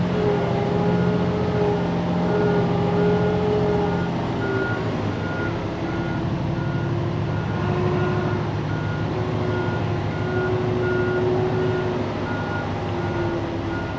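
Day-cab semi truck reversing: its backup alarm beeps steadily, about three beeps every two seconds, over the diesel engine running. The engine's pitch eases down slightly about four seconds in.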